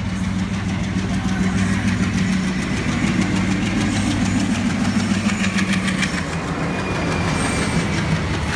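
Train's diesel engine running steadily with a low hum, and a quick rhythmic clatter for a few seconds in the middle.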